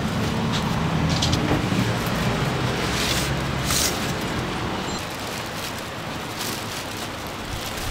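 Street traffic: a motor vehicle's engine running close by, a steady low hum that eases off about halfway through, over general roadway noise and a few light clicks.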